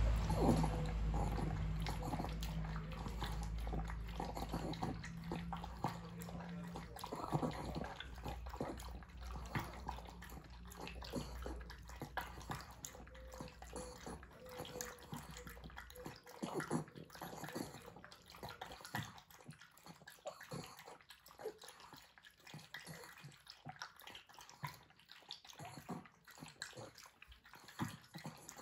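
Pug lapping water from a plastic bowl: a long run of quick, small wet laps. A steady low hum underneath stops about halfway through.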